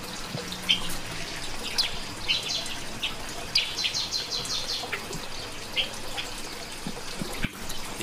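Small aviary birds chirping: scattered short, high chirps, with a quick run of repeated notes about halfway through.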